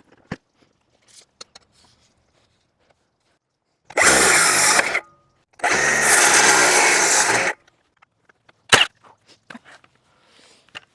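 Electric power saw run in two short bursts, about a second and then about two seconds, cutting a wooden board, followed by a single sharp knock.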